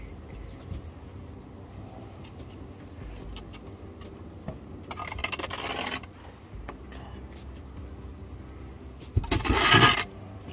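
A steel brick trowel scraping through mortar on top of a brick course, twice: a shorter scrape about five seconds in and a louder, longer one near the end.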